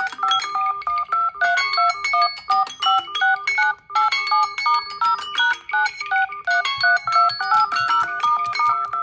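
Samsung Galaxy phone ringtone melodies playing: a busy, repeating pattern of quick, bright electronic notes.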